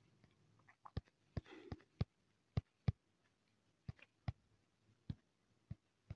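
About a dozen faint, sharp clicks at irregular intervals, with a brief soft rustle about a second and a half in.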